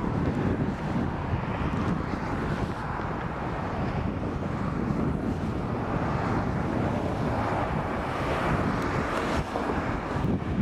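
Wind buffeting the microphone over a steady low rumble of jet aircraft engines.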